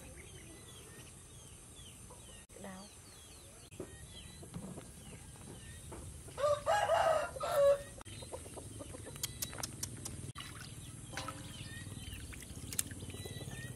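A rooster crows once midway, a loud call about a second and a half long, over faint high chirps of small birds. Weaker fowl calls and light water splashing follow near the end.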